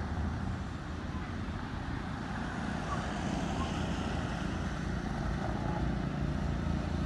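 Road traffic on a wet road: a steady low rumble of passing cars and their tyres, growing slightly louder toward the end.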